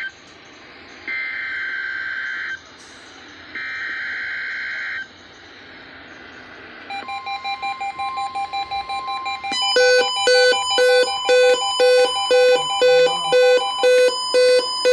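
NOAA Weather Radio Required Weekly Test alert on a Retekess weather radio receiver. It opens with the SAME digital header, buzzy two-tone data bursts about a second and a half long (one ending, then two more), followed by a short lull. About seven seconds in a steady alert tone starts with pulsing beeps, and from about nine and a half seconds the receiver's loud alarm beeps repeat nearly twice a second.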